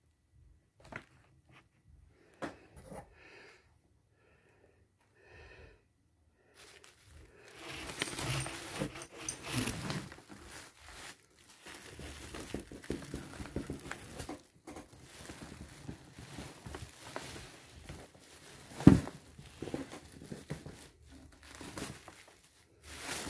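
Crumpled brown kraft paper packing and plastic bags rustling and crinkling as produce is taken out of a cardboard shipping box. The rustling begins after a few quiet seconds with faint taps, and there is a single sharp knock about two-thirds of the way through.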